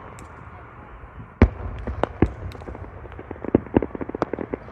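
Fireworks going off: one loud boom about a second and a half in, a few more bangs, then a quick run of crackling pops near the end.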